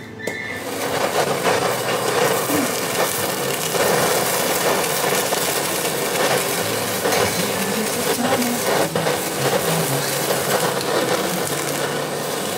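Handheld kitchen blowtorch flame running steadily as it sears nigiri on a plate, starting about half a second in.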